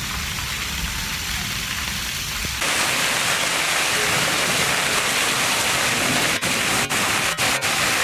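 Heavy rain hissing steadily on stone paving, with water spilling off a roof edge. About two and a half seconds in, the hiss turns brighter and louder, and near the end it briefly dips a few times.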